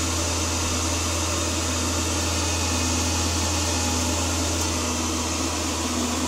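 ActiFry air fryer running: its fan and motor giving a steady low hum with an even rush of blown air.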